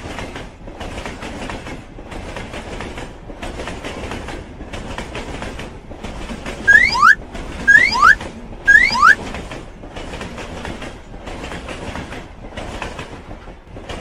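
Animated train sound effect: a train running, a steady rumble broken into regular pulses. About halfway through come three loud rising squeals about a second apart.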